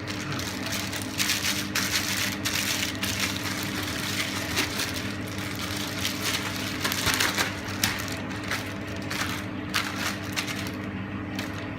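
Plastic ziplock bag of marinating chicken crinkling and rustling as it is handled and squeezed, in irregular crackles. A steady low appliance hum runs underneath.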